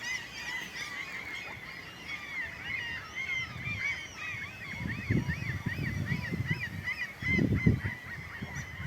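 Gull colony screaming, many birds at once with short, overlapping arched cries. Two low rumbles come through about five and seven and a half seconds in.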